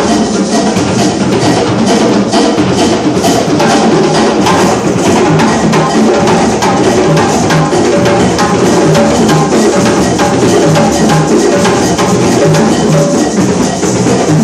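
West African drum ensemble playing a fast, dense rhythm on rope-tuned djembes and stick-played drums, with regular deep drum strokes under the sharp hand strokes.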